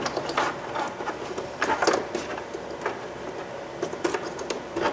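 Scattered light plastic clicks and rattles as the electrical connectors behind a car door panel are squeezed at their tabs and pulled apart, with the panel itself shifting and rustling.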